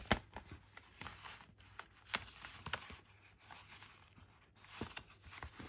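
A large envelope being handled: soft rustling of paper with scattered light taps and clicks, a little louder about five seconds in.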